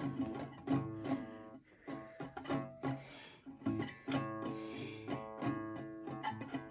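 Acoustic guitar strummed by hand in an uneven rhythm of quick strokes, the strings ringing between them, with a brief pause about one and a half seconds in.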